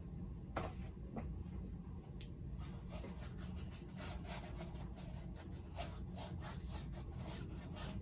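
Paintbrush rubbing thick acrylic paint in short scratchy strokes, a few at first and then several a second from about three seconds in, over a steady low hum.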